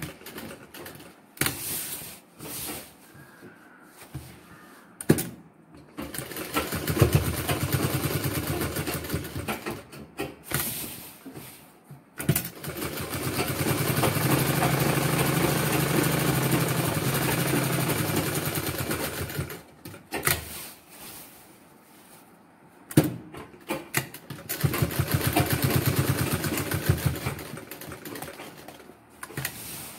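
Sewing machine stitching in three runs of several seconds each, the longest in the middle, with short stops and sharp clicks between the runs.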